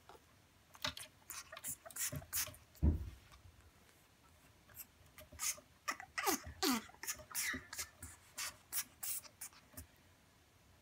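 African grey parrot chick making soft clicks and a few short downward-sliding squeaks. There is also a single low thump about three seconds in.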